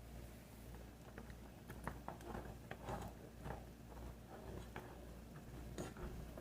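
Faint kitchen handling sounds: scattered light clicks and taps, a few a second, over a low steady hum.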